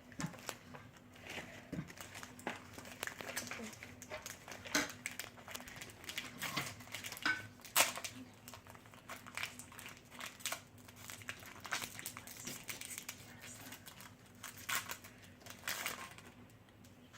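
Foil Pokémon booster pack wrapper crinkling and crackling in the hands as it is torn open and handled, in many irregular sharp crackles over a faint steady hum.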